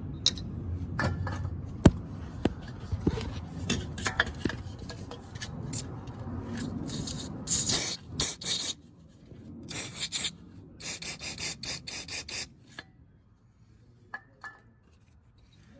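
Handling and rubbing noises, then short hissing bursts of an aerosol can of electrical contact cleaner sprayed into the oil pressure switch's wiring plug to clear out oil, ending in a quick run of about six short squirts.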